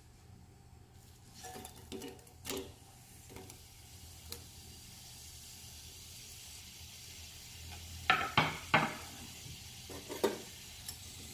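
Sliced red onions dropped into hot oil in a stainless steel frying pan, then sizzling quietly, the sizzle slowly building. A few sharp clinks against the pan come about eight seconds in, with one more near the end.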